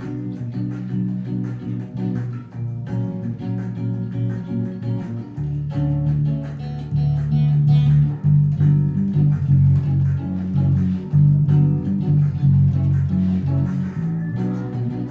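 Guitar music with plucked notes; deeper, louder notes join about five seconds in.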